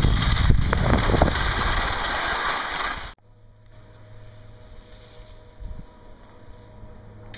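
Wind rushing on the microphone of a camera carried by a skier moving downhill, with skis sliding on snow, cutting off abruptly about three seconds in. A much quieter, steady low hum follows.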